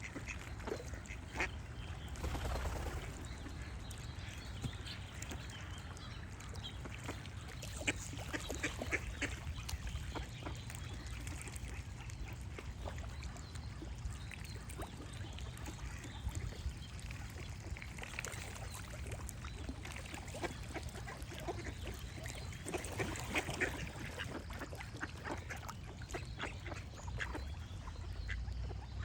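Ducks quacking in scattered bursts of quick quacks, with birds singing behind them and a steady low rumble underneath.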